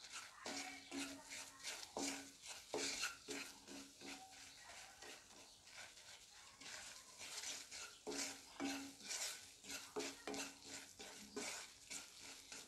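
Wooden spatula stirring and scraping a thick gram-flour masala around a non-stick kadai in repeated short strokes: besan roasting in oil on low heat. The strokes are faint.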